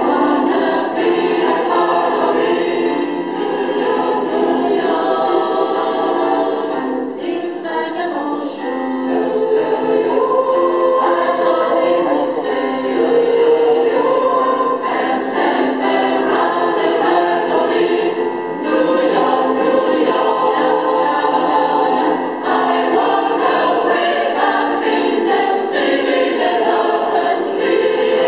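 Mixed choir of men's and women's voices singing in harmony: held chords in long phrases, with short breaks between them.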